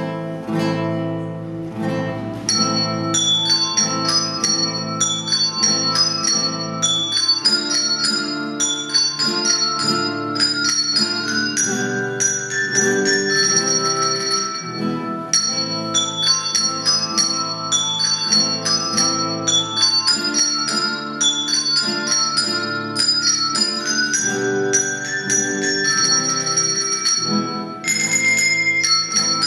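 Handbell ensemble playing a tune: many quick struck bell notes ringing on over held lower notes.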